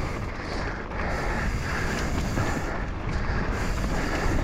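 Mountain bike rolling fast down a dirt singletrack: a steady rush of wind on the action camera's microphone mixed with tyre noise on the trail, with a few faint ticks.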